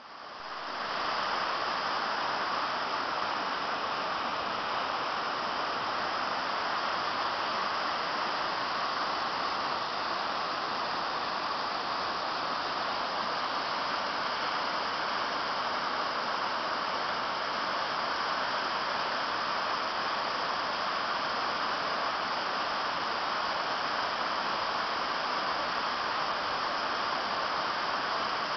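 Waterfall: falling water making a steady, even rush that fades in over the first second.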